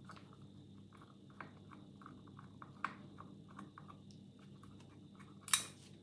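Small screwdriver turning a screw out of the steel case of an old Union night latch: faint, scattered small clicks and scrapes of metal on metal, with one louder clack near the end.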